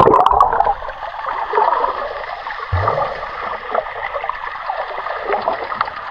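A splash, then steady bubbling and crackling water noise heard with the microphone under water, with a single low thump a little under three seconds in.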